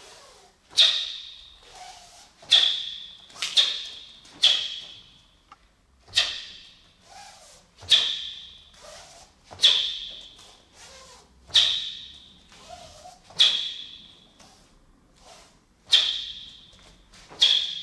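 Sharp snaps of a taekwon-do uniform cracking with each fast technique of an ITF pattern, about a dozen at irregular intervals, each with a short fading echo.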